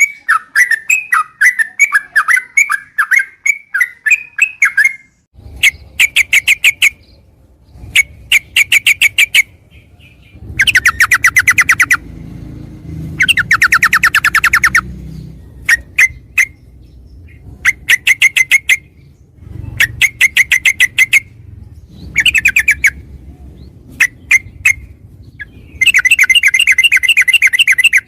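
Yellow-vented bulbul (trucukan) calling: a varied chattering song at first, then repeated bursts of very fast rattling trills, each lasting a second or two with short gaps between them.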